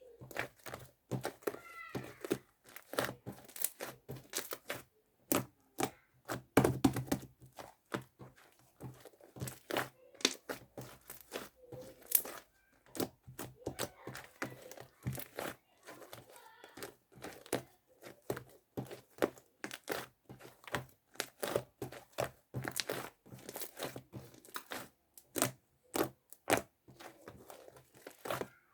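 Sticky, fluffy slime squished and stretched by hand, giving dense, irregular quick clicks and pops.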